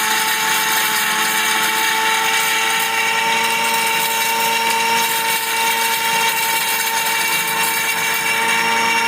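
Electric Instagrind flour grinder running steadily under load, its motor giving a high whine as it grinds wheat, sorghum and finger millet into flour.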